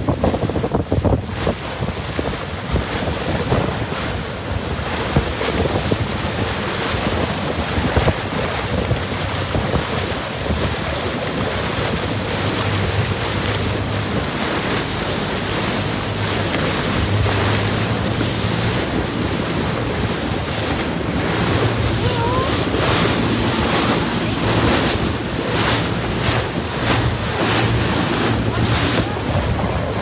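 Wind buffeting the phone's microphone over the rush of open-sea waves along a moving motorboat's hull, in gusts, with a low engine hum underneath.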